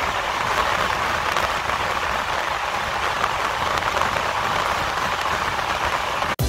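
Train running at about 60 mph behind Class 37 diesel locomotives, heard as a steady rush of air and rail noise with a low rumble beneath. It cuts off suddenly near the end as music starts.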